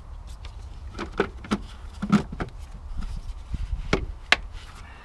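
Irregular plastic knocks and clicks of a car's filter being fitted back into its housing.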